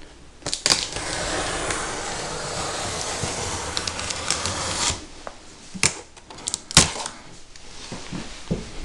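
Packing tape along the top seam of a cardboard box being slit open by hand, a continuous rasping scrape lasting about four seconds, followed by a couple of sharp clicks as the box is handled.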